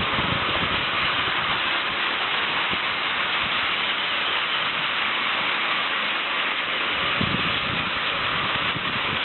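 Battery-powered Plarail toy E3-series train running on plastic track: a steady motor whir with the rattle of the wheels on the rails.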